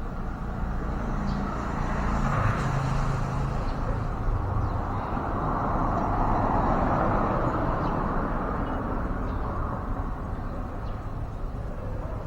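Road traffic passing: a vehicle's engine hum, then a swell of tyre and road noise that builds past the middle and fades.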